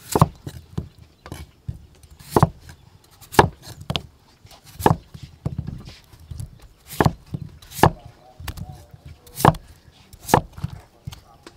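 Cleaver chopping peeled potatoes into chunks on a thick wooden chopping block: sharp knocks of the blade striking the wood, about eight loud chops a second or so apart, with lighter taps between.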